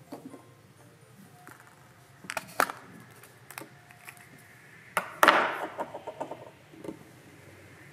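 Hard plastic clicking and knocking as a yellow toy capsule is handled and opened and a small plastic figure is taken out, with the sharpest pair of clicks about five seconds in, followed by a run of small ticks.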